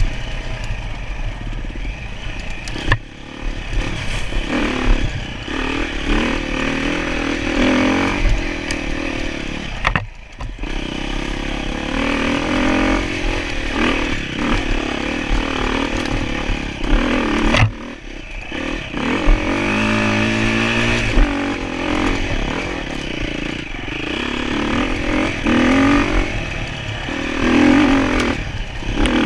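Enduro motorcycle engine being ridden hard off-road, its revs rising and falling again and again, with a few sharp knocks along the way.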